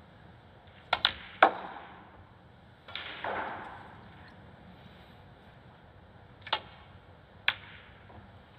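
Snooker shot: a sharp click of the cue tip on the cue ball about a second in, then a louder click of ball on ball, followed by a duller knock as the potted ball drops into the pocket. Two more single sharp ball clicks come near the end as the next shot is played.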